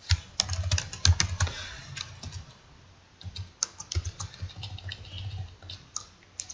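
Typing on a computer keyboard: quick, irregular keystrokes in a burst at the start, then a second run starting a little after three seconds in.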